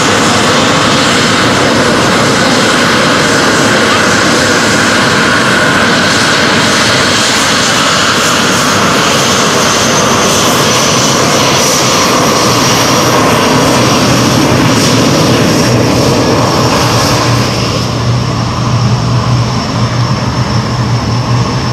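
Twin Rolls-Royce Turbomeca Adour turbofans of a two-seat SEPECAT Jaguar running loud and steady as the jet taxis close by, with a thin high whine over the rush. Near the end the noise eases a little and turns uneven.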